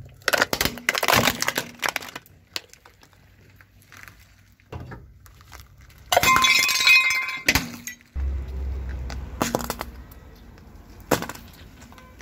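Car tyre crushing a plastic toy truck: a quick run of sharp plastic cracks and snaps in the first two seconds. About six seconds in comes a loud crunch lasting over a second. A low rumble follows, with a few more single cracks as other objects are squashed under the tyre.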